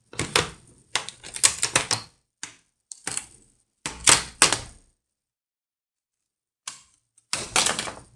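Plastic snap-in clips of an Acer Predator laptop's display bezel popping loose as the bezel is pried off with a plastic card: quick clusters of sharp clicks and crackles, a pause of about two and a half seconds, then a last short burst of clicks near the end.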